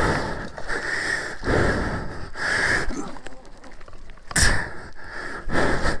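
A man breathing hard and loudly, gasping in and out about once a second, out of breath from exertion; one sharper, louder breath comes a little past four seconds in.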